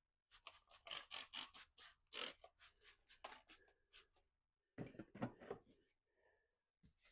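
Quick rubbing strokes, about three a second for some four seconds, as lubricant is worked onto a golf cart tire's bead and rim. A few soft knocks follow near five seconds in.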